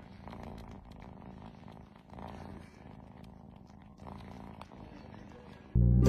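Kitten purring, a low steady rumble that swells about every two seconds with each breath. Music cuts in suddenly near the end.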